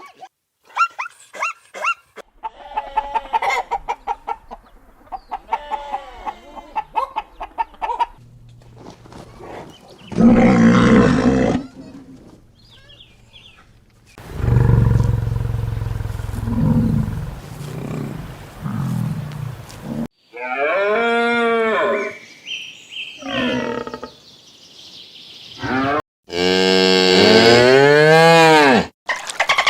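A run of different animal calls one after another, among them a cow mooing in a long low call through the middle. Near the end come repeated calls that rise and fall in pitch.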